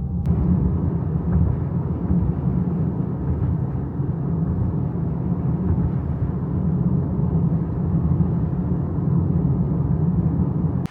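Steady low road rumble of a car driving on the highway.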